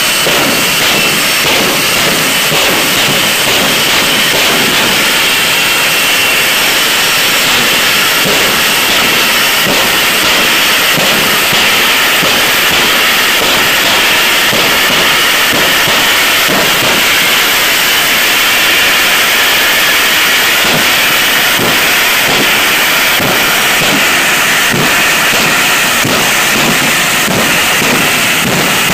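Jet engine running loudly and steadily, a continuous hissing roar with no breaks.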